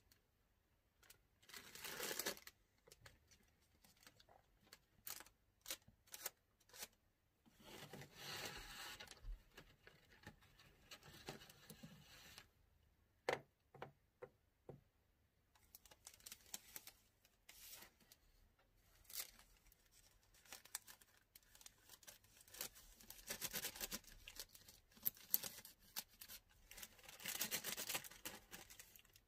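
Patchouli incense sticks being counted out and handled: faint clicks and light taps of the sticks against each other, with a few longer bursts of plastic-bag rustling.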